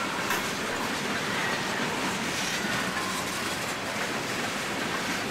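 Freight train cars rolling past, a steady noise of steel wheels running on the rails.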